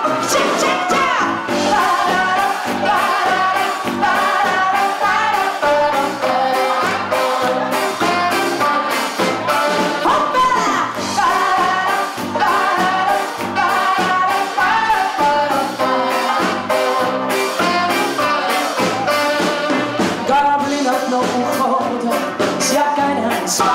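Live jazz band playing an instrumental passage of the song between sung verses, melodic lines over a steady beat.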